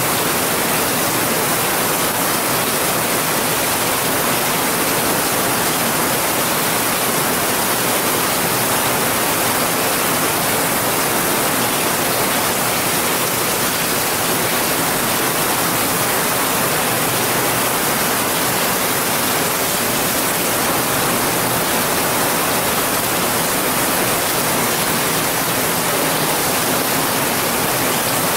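Rain falling steadily onto waterlogged grass and muddy standing water: a dense, even hiss that never lets up.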